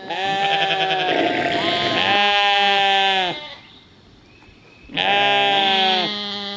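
Jacob sheep bleating: two long, loud calls, the first about three seconds long with a rough, broken middle, the second starting about five seconds in.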